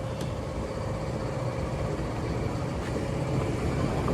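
Steady rumble of motor vehicle engines and traffic, with a faint steady hum.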